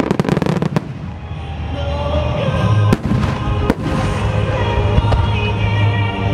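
Twelve-inch (shakudama) firework shells bursting in quick succession: a rapid cluster of sharp bangs at the start, then single bangs about three, three and a half and five seconds in. A song plays underneath throughout.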